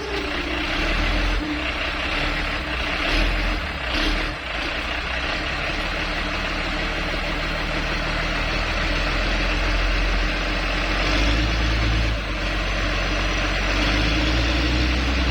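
Motor grader's diesel engine running steadily under load, swelling a little at times, as the grader is worked out of soft ground it has sunk into.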